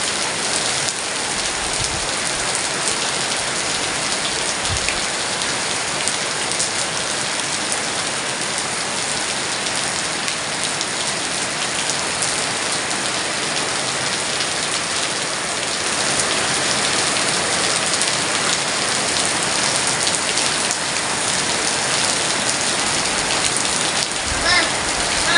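Heavy rain pouring down steadily in a dense, even hiss, a little louder from about two-thirds of the way through.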